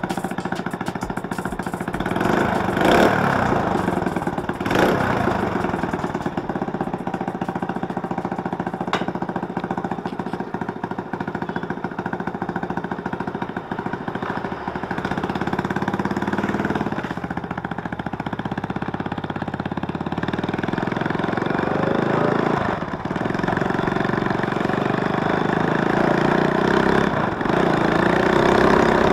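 Four-stroke underbone motorcycle engine running on freshly changed oil, sounding fairly smooth. It idles and then revs up in rising sweeps as the bike pulls away, with two sharp knocks a few seconds in.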